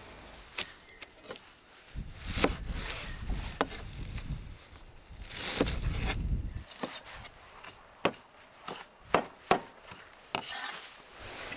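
A large kitchen knife chopping a bunch of fresh herbs on a wooden cutting board. The blade knocks sharply on the wood, more often in the second half, and there are two longer stretches of rubbing and rustling about two and five seconds in.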